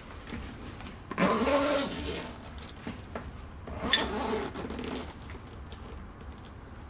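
A cat meowing twice from inside a closed backpack-style pet carrier: a long meow about a second in and another just before four seconds. Around the meows come a zipper being drawn and scuffs of the carrier being handled as it is zipped shut.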